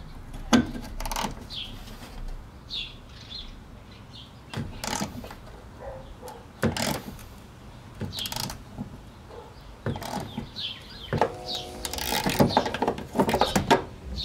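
Scattered knocks, clicks and scrapes of hand work on the car's rear body panel, with birds chirping in the background and a short squeak near the end.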